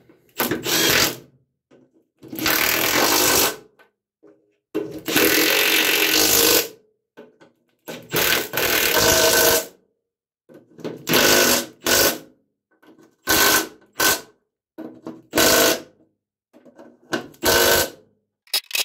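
Compact cordless impact wrench, a Milwaukee M12 stubby, hammering in about eight short bursts of half a second to a second and a half each, with pauses between. It is running hub bolts down tight through the steel mower deck, working across from bolt to bolt.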